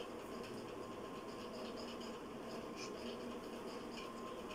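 Quiet room hiss with a few faint, light scratches and ticks of handling, as fingers hold a plastic toy truck up close to the phone.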